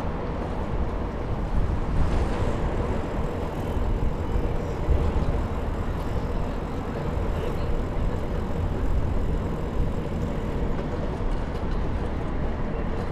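Steady low rumble and hiss of riding a bicycle, likely wind buffeting the microphone along with the tyres rolling on the trail, with no distinct events.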